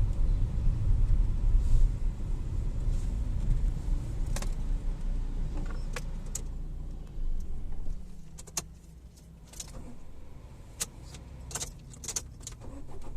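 Ford EcoSport engine running, then switched off about eight seconds in, followed by several light clicks and rattles. The shut-off comes without the earlier vibration noise: the loose intercooler, now fitted with a temporary bush, no longer shakes.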